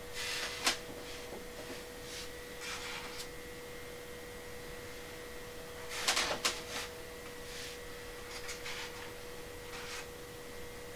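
Hen's eggs being handled and set into the plastic egg-turner tray of an incubator: scattered soft clicks and rustles, loudest about six seconds in, over a steady faint hum.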